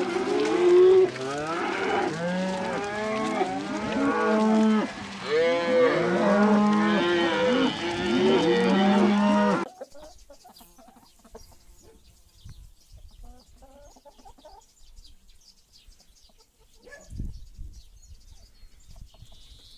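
A group of farm animals calling over one another: many short calls rising and falling in pitch, with longer, steadier low calls among them. The calling stops after about ten seconds, leaving only faint scattered sounds.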